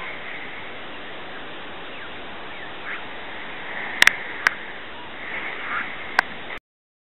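Black-billed magpies giving short harsh calls over a steady wind hiss, with a few sharp clicks in the middle; the sound cuts off suddenly near the end.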